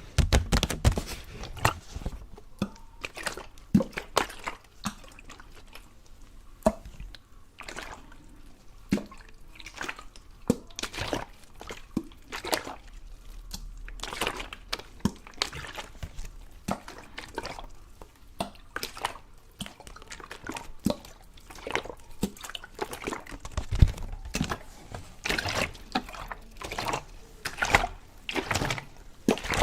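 ASMR water sounds: irregular drips and small splashes of water, sharp drops coming singly and in quick clusters.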